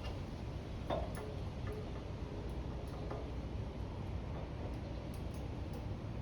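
Gasoline dripping from a small-engine carburetor while fuel flow is checked, as light irregular ticks and drops, the clearest plink about a second in, over a steady low background rumble.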